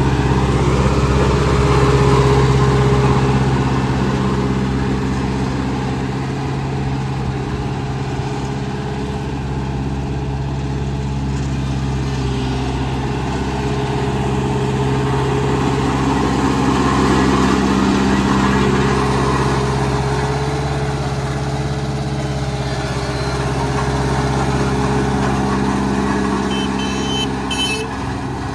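Large engine of road-building machinery running steadily, its level rising and easing slightly, with a few short high-pitched beeps near the end.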